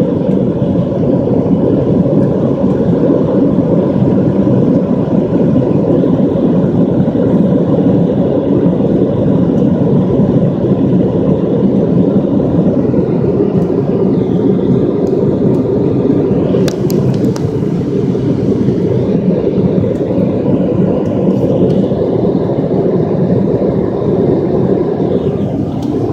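Steady, loud rumble of a jet airliner's engines and rushing air, heard from inside the passenger cabin during takeoff or climb, with a faint steady hum on top.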